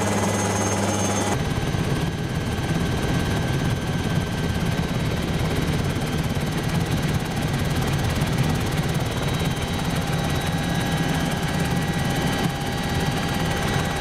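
Helicopter engine and rotor heard from inside the cabin, a loud steady drone. The sound changes abruptly about a second in, then runs steadily in flight.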